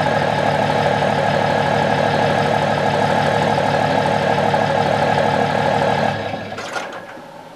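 Diesel pickup idling steadily through a 5-inch turbo-back exhaust with an Aero 5050 XL resonated muffler, a deep throaty sound at the tailpipe. About six seconds in the sound dies away.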